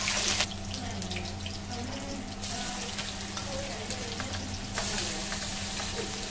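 Hot oil sizzling in a kadai as onions and spices fry, with light clicks of a steel spatula against the pan and bowl as ground spice paste is scraped into the oil. A steady low hum runs underneath.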